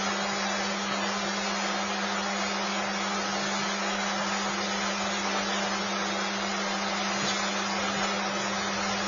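Steady, even hiss with a constant low hum underneath, unchanging throughout; no distinct animal calls stand out.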